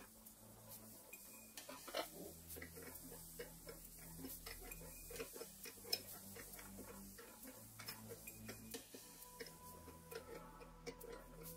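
Faint, scattered clicks and taps of hands and a small tool handling brass valve fittings inside an espresso machine's opened plastic housing, with sharper knocks about two seconds in and again near the middle.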